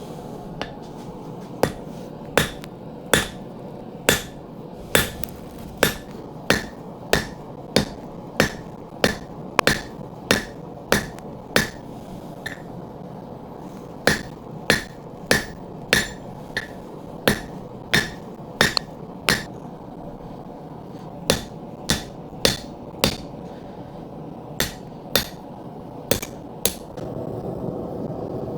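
Blacksmith's hand hammer striking hot steel on an anvil with sharp, ringing blows at about one and a half a second, in runs broken by short pauses, over a steady low hum. The blows stop near the end and a louder rushing noise comes in.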